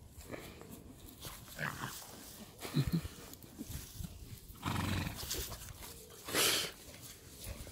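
Horses grazing close by, with short crunching and tearing sounds of grass being cropped and a loud breathy rush from a horse's nose about six seconds in.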